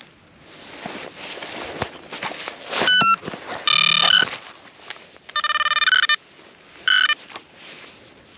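Metal detector giving electronic target tones over a hole where a coin is buried: a short stepped beep, a longer steady tone, a warbling tone about a second long, and a brief beep. Between the tones come scraping and rustling sounds of soil being worked.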